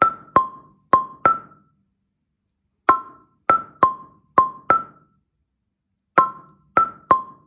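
African marimba with wooden keys struck with mallets, playing a short figure on C and E: both notes together, then single strokes right, left, left, right. The figure repeats in groups of strokes, each note ringing briefly, with a pause of about a second and a half between groups.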